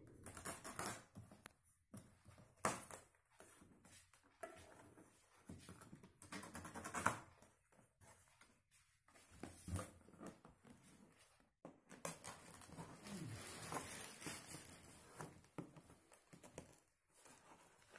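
Faint cardboard-box handling: plastic strapping bands pulled off a TV carton and packing tape cut with a knife, making scattered clicks, knocks and scraping rustles.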